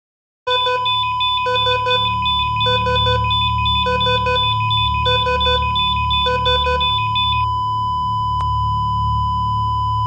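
Patient monitor alarm: after a brief silence, beeps repeat about once a second over a steady high tone. About 7.5 seconds in the beeping stops, leaving one continuous flatline tone, the monitor's sign of no heartbeat.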